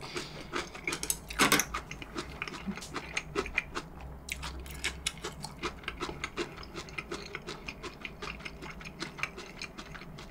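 A person chewing food close to the microphone: a steady run of small wet clicks and crunches, several a second, with a louder one about a second and a half in.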